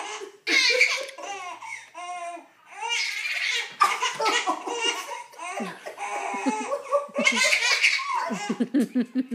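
A baby laughing hard in a giggle fit: high-pitched giggles and belly laughs in long, repeated bursts.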